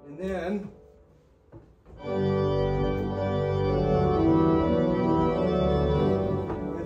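Hauptwerk virtual pipe organ playing full sustained chords over a deep pedal bass, starting about two seconds in and shifting between chords in a short fanfare-like phrase in parallel harmony. A brief bit of voice is heard just before the organ comes in.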